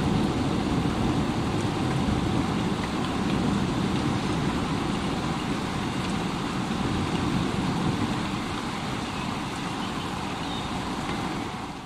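Heavy rain falling steadily as an even, unbroken hiss with a deep rumble underneath, from a thunderstorm recording.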